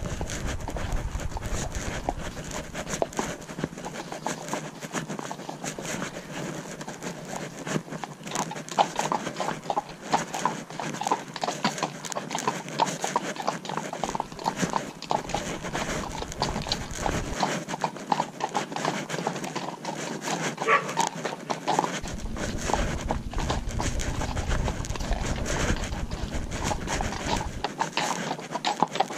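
Horses' hooves clip-clopping at a walk on a track and paved lane, heard from the saddle, a steady run of irregular hoof strikes.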